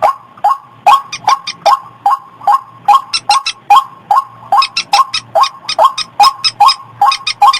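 White-breasted waterhen (ruak-ruak) calling over and over in a fast, even run of short, hoarse notes, about two and a half a second. It is a recorded lure call used to draw the birds in.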